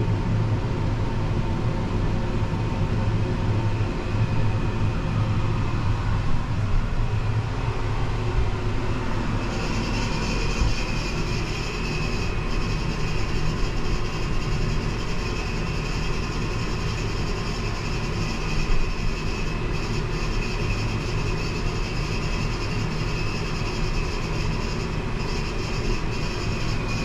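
Steady mechanical rumble and low hum inside an enclosed gondola of La Grande Roue de Montréal Ferris wheel as it turns. A higher hiss joins about ten seconds in and holds.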